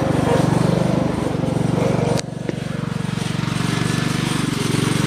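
Small lawn mower engine running steadily with a fast, even pulse; about two seconds in it suddenly drops in loudness and keeps running more quietly.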